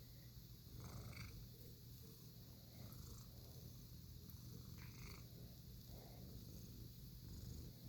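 Domestic cat purring softly and steadily, a low rumble that swells gently about every two seconds.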